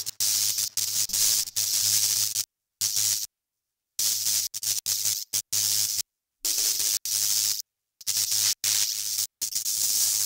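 End-screen outro track: a loud hissing, static-like sound over a few steady low tones, cutting out abruptly to dead silence about five times.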